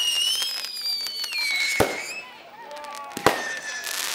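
Aerial fireworks: long, slowly falling whistles over a dense crackle, with two sharp bangs about two and three seconds in, the second the louder.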